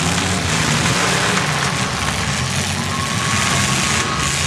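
Several demolition derby pickup trucks' engines running and revving together, a steady dense drone with a wash of noise over it.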